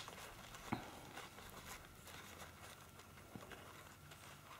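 Very quiet room with a few faint clicks and taps of nuts being handled and placed on the wreath. The sharpest click comes under a second in.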